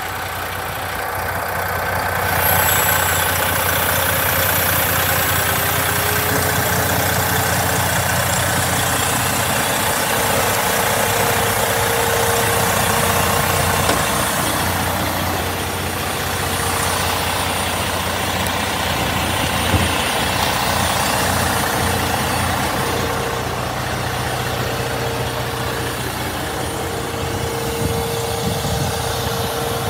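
Diesel engine of a 2007 Freightliner Columbia truck tractor idling steadily.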